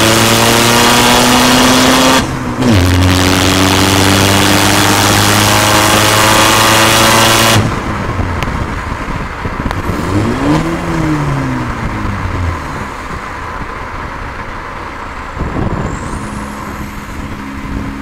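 Skoda Fabia 1.6 TDI diesel engine through a straight-through exhaust, pulling hard with its note climbing steadily. The note breaks off briefly about two seconds in, as at a gear change, then climbs again until the throttle is lifted about seven and a half seconds in. After that it runs much quieter, with one brief rise and fall in engine note and then a steady cruise.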